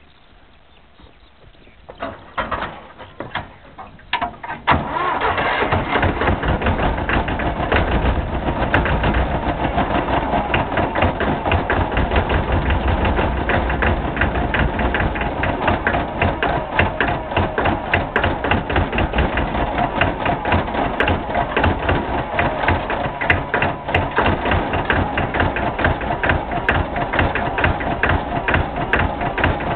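McCormick Farmall tractor engine starting: a few seconds of short cranking bursts, then it catches about five seconds in and runs steadily with a fast, even firing beat.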